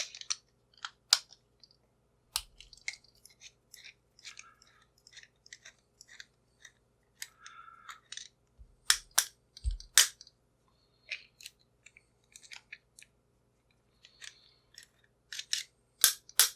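Small metal tools and a padlock being handled on a workbench: scattered sharp clicks and taps, a few of them louder, with brief scrapes between.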